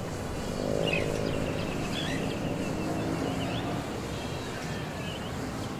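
Outdoor ambience: a steady low rush of wind and distant noise, with small birds chirping now and then and a faint pitched sound about a second in.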